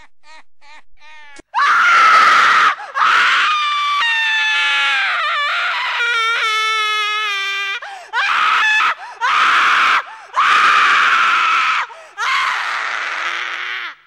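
Loud, raspy jump-scare screaming that bursts in suddenly about a second and a half in and goes on in several long screams with short breaks, one of them a wavering, gliding wail. Before it, a run of short, quick chirping sounds.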